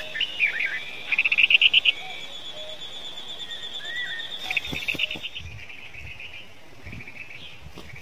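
Birds calling at a nest: a few short gliding chirps, then a loud, fast trill about a second in, and softer rattling trills in the second half. Under the calls runs a steady high-pitched insect buzz that fades out about five seconds in.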